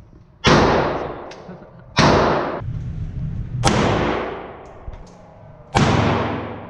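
Four gunshots, unevenly spaced, each a sharp crack followed by a long echoing decay.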